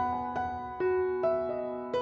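Gentle background piano music, with single notes struck about every half second and left to ring.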